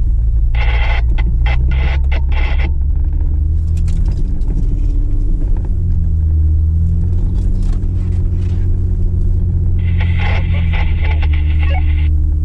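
A 4x4's engine running with a steady low rumble while driving; its pitch shifts a few seconds in. Twice a higher, crackly sound cuts in over it for about two seconds.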